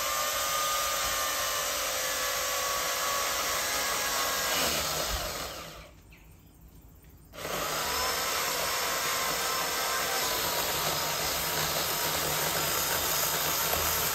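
Electric chainsaw cutting into a tree trunk in two long runs with a short silent pause between. The motor winds up quickly at the start of each run and winds down when the trigger is released, with no idling in the gap.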